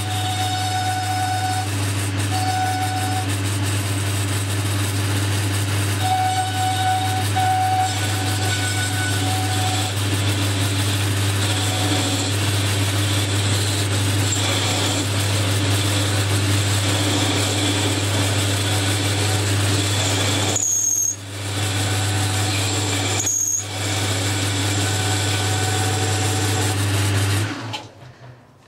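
Boxford lathe running with a cutting tool turning a metal bar: a steady motor hum with an on-and-off whine from the cut. The sound drops out briefly twice near the end, then stops suddenly.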